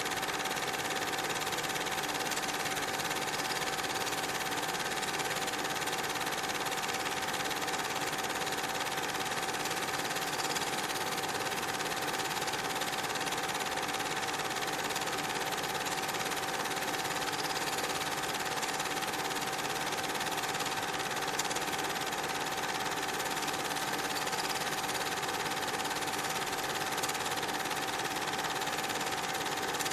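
Steady, unchanging mechanical whir with hiss and a constant high-pitched hum; no train sounds are heard.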